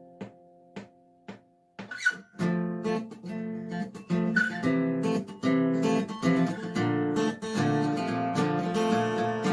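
Acoustic guitar. A chord fades out, three single plucks follow about half a second apart, and then steady picked and strummed playing starts about two seconds in and carries on.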